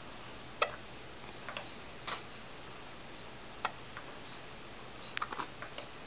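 A baby hiccuping: short, sharp sounds at irregular gaps of about a second or more, the strongest about half a second in, with a quick run of small clicks near the end.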